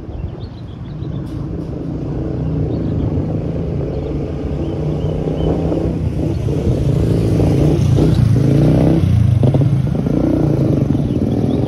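Road traffic passing close: vehicle engines running, growing louder over the first several seconds, with engine notes rising and falling in pitch partway through as vehicles pass.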